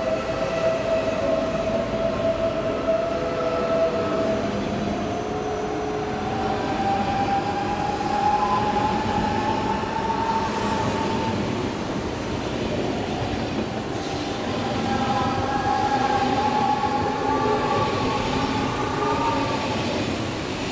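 Deutsche Bahn ICE electric multiple unit pulling out and gathering speed: the drive whine rises slowly in pitch, over a steady rumble of wheels on rail. A second set of whining tones comes in about two-thirds of the way through as more of the train passes.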